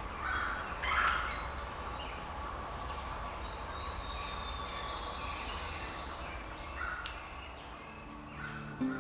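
Woodland birds calling, with a couple of louder harsh calls about a second in and a long high note a few seconds later. Acoustic guitar music comes in just before the end.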